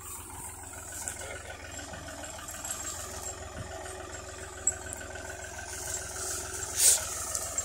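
Al-Ghazi farm tractor's diesel engine running steadily at low revs as it slowly tows a heavy wooden beam on a chain. A brief loud noise cuts in near the end.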